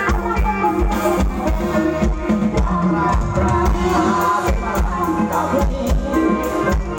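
Live band music with a steady drum-kit beat and pitched instruments playing together.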